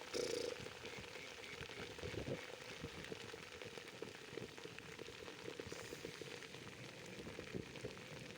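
Heavy rain falling, a dense crackling patter of drops close to the microphone, with a brief louder rustle right at the start.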